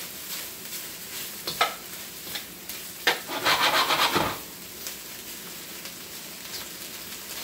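Thin-sliced beef searing in a very hot wok, sizzling steadily as it is stirred with a metal turner. There are a few sharp clicks of the turner against the wok, and a louder stretch of sizzling and scraping lasts about a second, starting about three seconds in.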